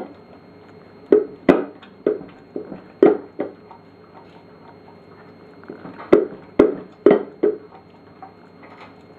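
Flat-coated retriever eating from a bowl on the floor: sharp, irregular chomps and knocks, in two spells with a quieter pause of about two seconds between them.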